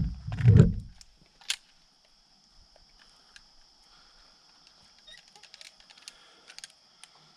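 A loud, low bumping rumble in the first second, then a single sharp click. Under it, night insects trill steadily on two high pitches, with faint scattered ticks near the end.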